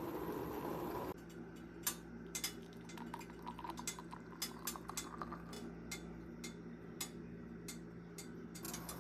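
A steady rushing noise that cuts off about a second in, then scattered light clicks and clinks of a spoon and mug being handled.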